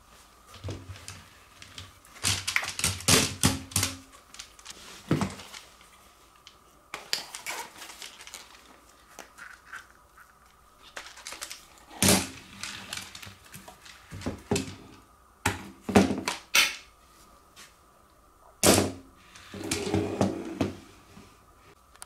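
Irregular clicks and knocks of hard plastic stick-vacuum parts being handled and fitted together: the pipe, floor nozzle and cyclone attachment going onto the body, in several bursts.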